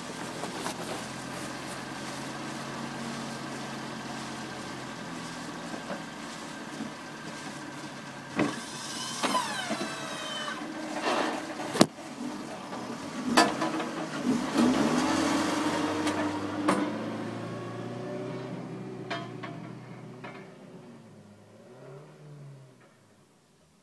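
Snowplow vehicle's engine running, revving up and down through the middle with a few sharp clanks, then fading away near the end.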